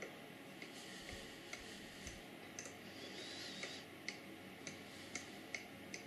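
Mechanical rotary encoder on a MikroElektronika Rotary Click board turned detent by detent: faint, evenly spaced clicks, about two a second, a dozen in all.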